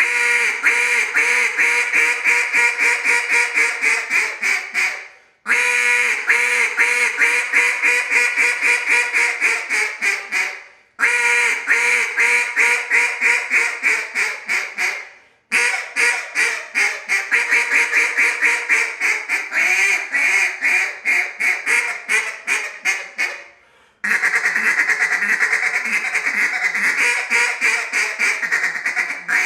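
Elite Duck Calls acrylic Freak duck call blown in runs of rapid, raspy mallard-hen quacks, each run trailing off before a short break, four breaks in all.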